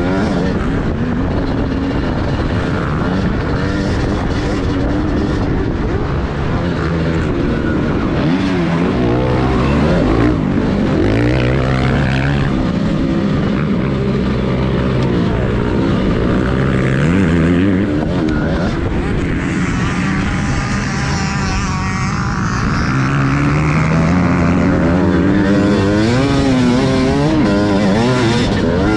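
TM Racing 250 motocross bike engine, heard from on the bike, revving hard as it is ridden around the track. Its pitch climbs and drops over and over as the rider opens and shuts the throttle and shifts.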